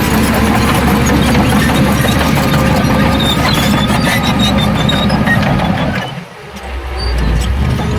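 Heavy diesel earthmoving machinery running steadily, with scattered short high-pitched squeaks over the low engine drone. The sound dips briefly about six seconds in, then comes back.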